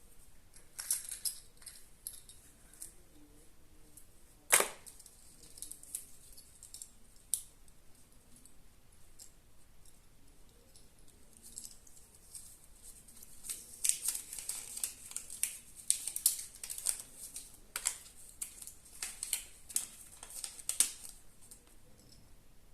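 Kinder Surprise eggs being unwrapped and opened by hand: sharp crinkles and clicks of the foil wrapping and the plastic capsule inside. One loud snap comes about four and a half seconds in, and a dense run of crinkling and clicks comes in the second half.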